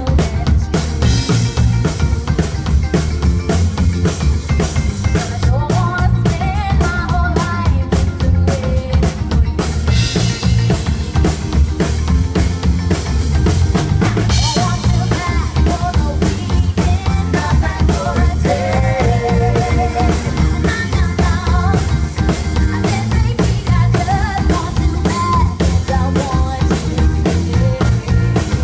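Live rock band playing over a PA: a steady drum-kit beat with bass drum and snare, heavy bass guitar, electric guitar and keyboards, with singers at the microphones.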